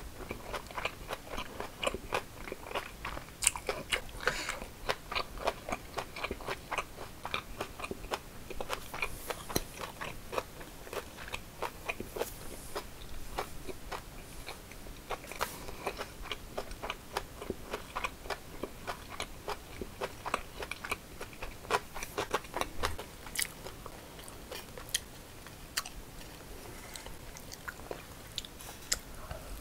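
A person chewing food with the mouth closed, close to the microphone: a steady run of small wet clicks and crunches, several a second.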